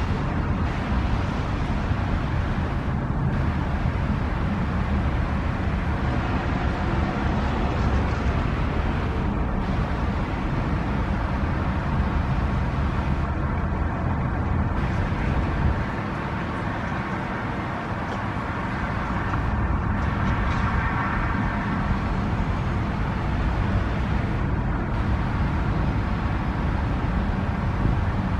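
Diesel locomotive of an AMT (exo) commuter train running, a steady low engine rumble that dips briefly about two-thirds of the way through.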